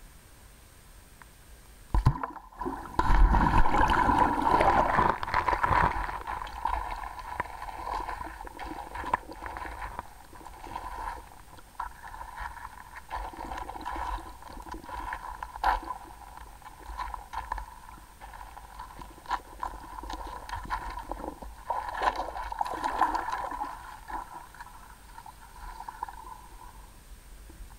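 Muffled gurgling and sloshing of creek water heard through a submerged camera. It starts suddenly about two seconds in, is loudest over the next few seconds, then keeps rising and falling with a few scattered clicks.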